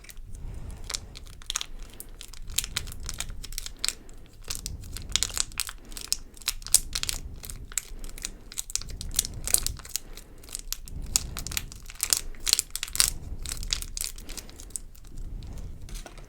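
Plastic packaging crinkling and crackling in the hands as a mini slime kit's contents are unpacked, a dense run of small irregular crackles that comes and goes in spells.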